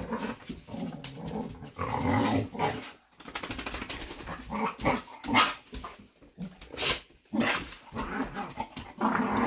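Several pet dogs grumbling and growling, with a few short sharp sounds among them.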